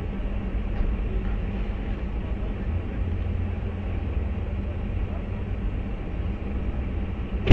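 Steady low rumble of stopped and idling traffic, heard from inside a car's cabin.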